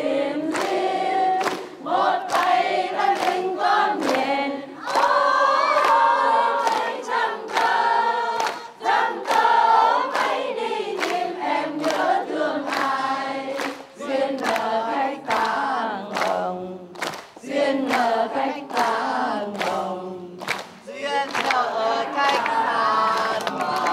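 A group of women singing a slow love song together in unison, unaccompanied or nearly so, with hands clapping along about twice a second.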